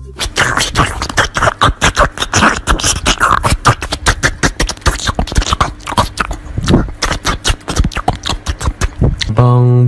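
Rapid, irregular percussive clicks and thumps, several a second.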